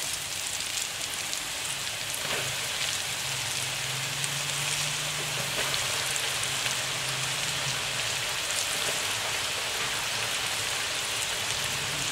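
Battered banana-stem slices deep-frying in hot oil in a wok, freshly added to the hot oil: a steady, dense sizzle full of fine crackles.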